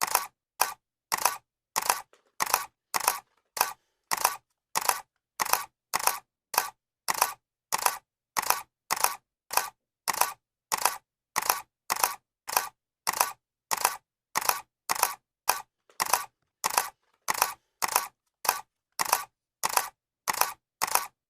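Camera shutter clicking over and over at about two clicks a second, each click a quick two-part snap.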